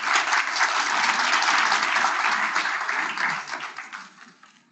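Audience clapping: a dense patter of many hands, fading out over the last second.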